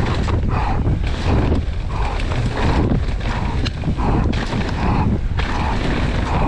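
Downhill mountain bike running over rough trail: wind rushing over the microphone with a constant low rumble and rapid rattling knocks from the bike.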